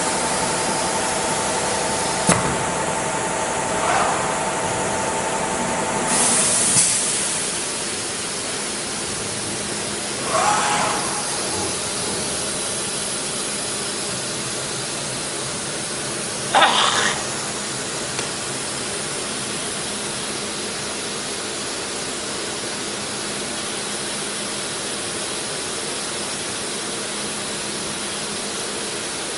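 Linear automatic-tool-changer CNC router running: a steady loud hiss of machine noise. A whining tone stops about six seconds in, and a few short, louder hissing bursts come through.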